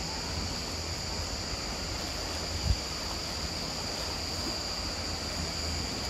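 Small waves lapping against shoreline rocks, with wind rumbling on the microphone and a steady high-pitched buzz above it. A brief low thump comes about two and a half seconds in.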